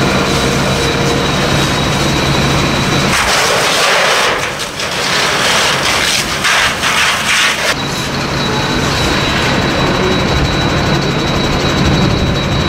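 Steady mechanical drone with a low hum and a thin high whine, with the hiss of a fire hose's water jet; for about four seconds in the middle the hiss of the spray takes over, brighter and louder.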